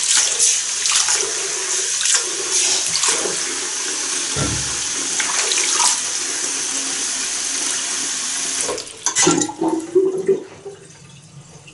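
Bathroom sink tap running, with hands rinsing under the stream and water splashing into the basin and going straight down the freshly wire-cleared drain. Near the end the tap shuts off, followed by a few knocks and splashes before it goes quiet.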